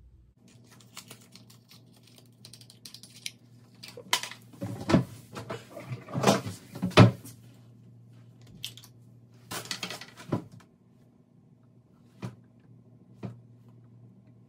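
A small cardboard box and a cream-eyeshadow pot being unpacked and opened by hand: a run of irregular clicks, scrapes and crinkles, loudest through the middle, then two sharp single clicks near the end.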